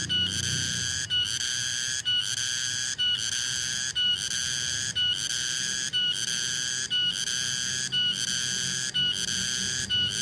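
Tonggeret cicada calling: a loud, shrill, whistle-like buzz repeated in phrases of about a second, each broken off by a brief gap before the next begins.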